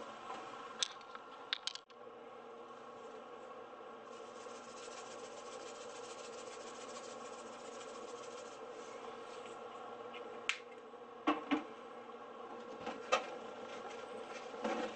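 Steady buzzing hum with several tones from a kitchen appliance, under a few light clicks. Short taps and rustles between about ten and thirteen seconds in and near the end come from floured pork pieces being handled and folded in a paper towel.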